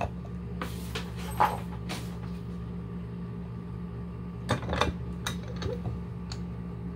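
A few small clicks and light metallic clinks as a PL-259 coax connector and solder are handled in a wooden-jawed bench vise, with a cluster of them about four and a half seconds in, over a steady low hum.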